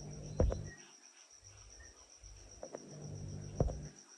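A cricket trilling steadily as one high, evenly pulsing tone, with a few soft knocks over a low hum, the loudest about half a second and three and a half seconds in.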